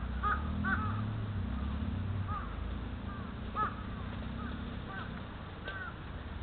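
Birds calling over and over with short, arched calls, several a second at times and sparser later, over the low, steady rumble of the Suzuki Jimny JA11's engine crawling off-road.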